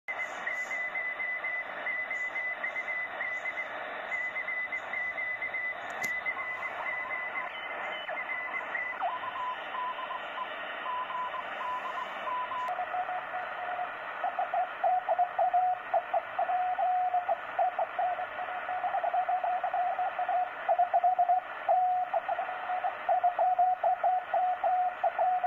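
Sony ICF-SW55 shortwave receiver playing the amateur bands in SSB mode: band hiss with steady whistling tones that change pitch as it is retuned, and a click about six seconds in. From about halfway a wavering tone comes and goes. The set still has its factory fault that makes SSB reception warble.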